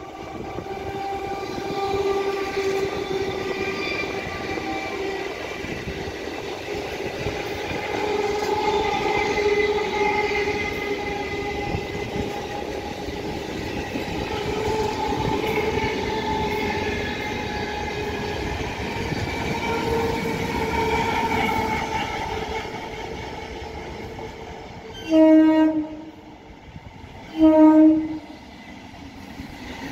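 Indian electric multiple-unit (EMU) local train passing close by: steady rolling noise of its wheels with a whine of several held tones that drift slowly in pitch. Near the end, an EMU horn sounds two short blasts about two seconds apart, louder than the passing.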